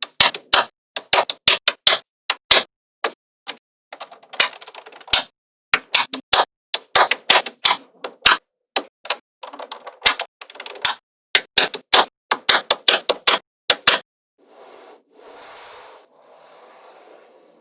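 Small magnetic balls clicking as they snap together, in quick irregular runs of sharp clicks. After about fourteen seconds the clicks stop, and three softer, longer noises follow.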